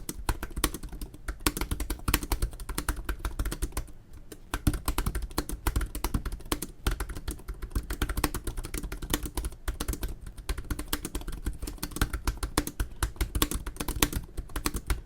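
Fast, continuous touch-typing on an HP Spectre x360 (early 2017) laptop keyboard: a rapid stream of key clicks with a brief pause about four seconds in.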